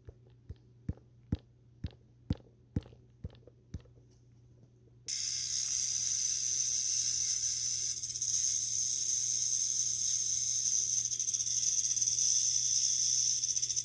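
Snake sound effect: a string of faint ticks about half a second apart, then a loud, steady, high hiss that cuts in suddenly about five seconds in.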